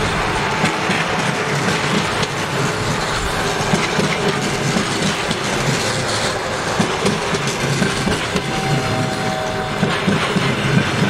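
Russian passenger coaches running past at speed close by: a loud, steady rumble with the wheels clattering over the rails, and a faint ringing tone creeping in briefly about eight seconds in.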